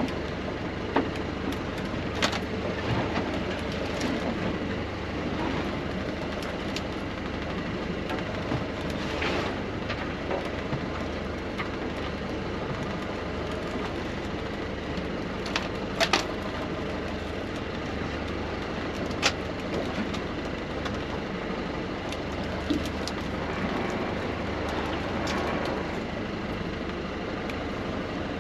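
A boat's engine running steadily, with a few sharp knocks and clicks now and then.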